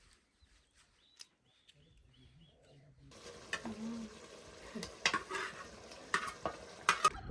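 Food sizzling as it fries in a pan, starting about three seconds in, with a few sharp clinks of a utensil against the pan as it is stirred.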